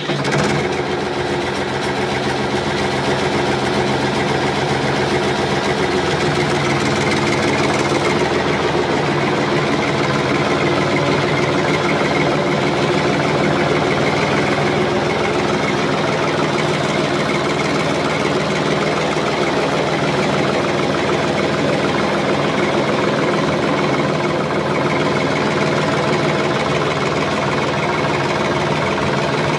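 A heavy engine running steadily at an unchanging speed, with a slight shift in its low note about six seconds in.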